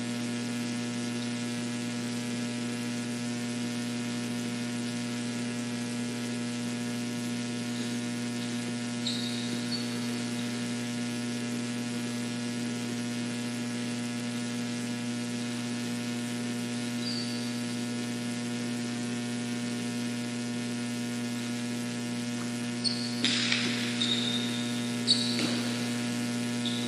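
Steady electrical mains hum on the recording, with a low buzz and many overtones. A few faint short squeaks come along the way, and near the end there are several sharp knocks and squeaks.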